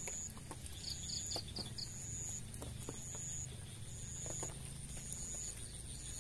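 An insect calling: a high, steady note repeated about once a second, each note just over half a second long, with a quick run of five short chirps about a second in, over a low outdoor rumble.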